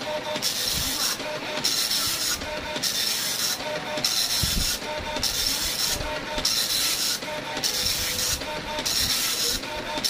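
Epson LX-310 nine-pin dot-matrix printer running its built-in self-test printout: the print head buzzes across the page in passes just under a second long, each followed by a short break for the line feed, about once every 1.2 seconds.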